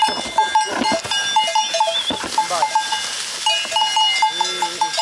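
Cowbells on walking cattle clanging irregularly, several strikes a second. A short low call comes about four seconds in.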